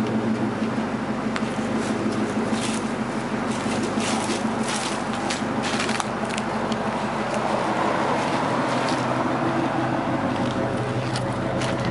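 A 2002 Mustang GT's 4.6-litre V8 idling steadily through an off-road X-pipe with no catalytic converters and Flowmaster original 40 mufflers. There is a series of sharp clicks and knocks in the first half.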